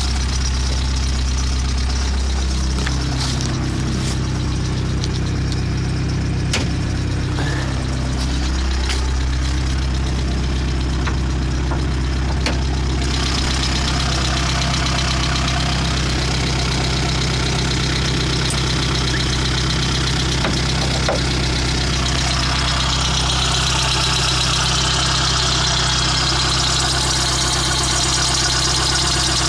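VW Polo 86C's 45 PS AAU four-cylinder petrol engine idling with a loud rattle. The idle sags and recovers twice in the first nine seconds, and a brighter hiss joins about halfway through.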